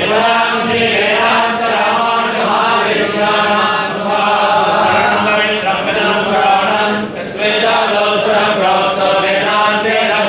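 Group of voices chanting a devotional recitation together, continuous and loud, over a steady held tone, with a short break for breath about seven seconds in.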